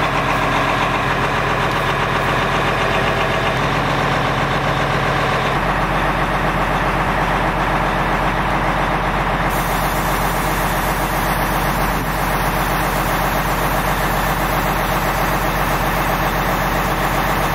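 Peterbilt 377 semi truck's diesel engine idling steadily.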